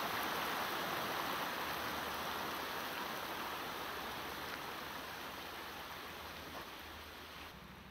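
Shallow river running over stones: a steady rushing hiss that slowly fades and drops away near the end.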